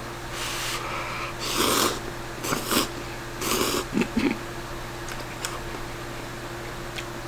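A man slurping instant cup noodles off chopsticks: about five short, loud, airy slurps in quick succession over the first four and a half seconds, then quieter with only faint small clicks.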